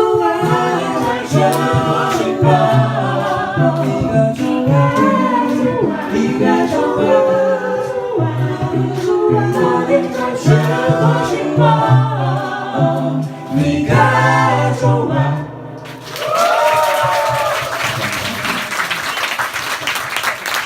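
An a cappella vocal group singing a Korean pop song in close harmony over a sung bass line; the singing ends about sixteen seconds in. Then the audience applauds, with a shout of cheering.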